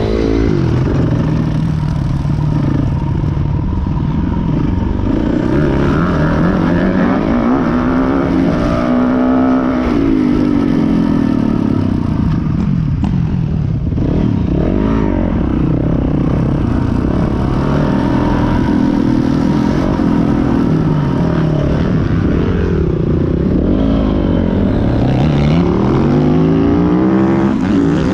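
Yamaha dirt bike engine revving up and down as it is ridden round a motocross track, its pitch climbing and dropping repeatedly with the throttle, heard close from the rider's own camera.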